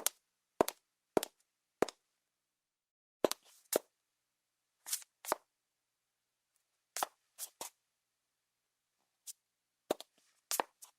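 High-heeled shoes walking, each heel strike a sharp click: four evenly spaced steps at first, then sparser strikes, some in quick pairs, with silence between.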